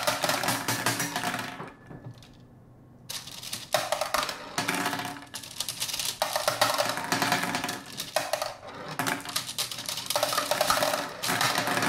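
Glass marbles clattering and rattling inside a clear plastic marble-filled toy head, in several long bursts of rapid clicks with brief pauses between them.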